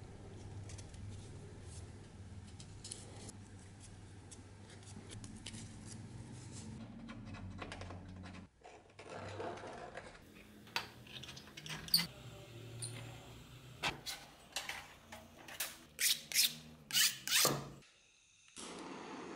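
A steel scriber scratching marking lines on thin brass sheet along a steel ruler: a run of short scraping strokes that get sharper and louder toward the end, over a low steady hum in the first half.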